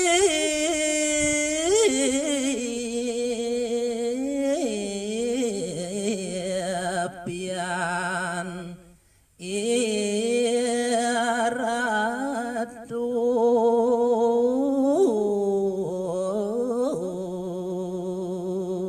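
A man singing a Balinese geguritan in pupuh Ginada, solo voice without accompaniment. He draws out long, ornamented notes that waver and bend in pitch, with a brief pause about nine seconds in.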